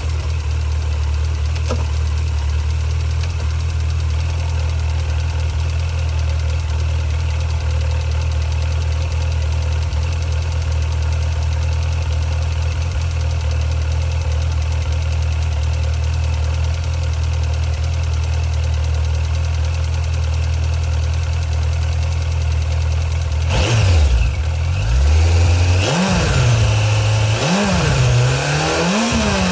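Suzuki GSX1250FA motorcycle's inline-four engine idling steadily after an oil and filter change, then revved in about four short blips near the end, pitch rising and falling each time.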